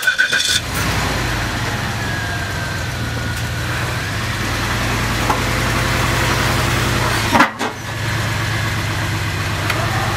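1999 Cadillac DeVille's Northstar V8 running at low speed as the car is driven slowly forward up onto oil-change ramps, a steady low hum. A few sharp clicks at the start, and the engine sound drops out briefly about seven and a half seconds in before resuming.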